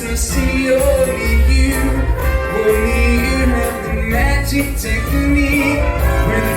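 Big band swing music: a band playing a moving melody over a steady bass.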